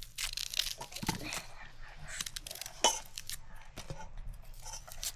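Irregular rustling, tearing and crunching handling sounds, with a sharp knock about three seconds in.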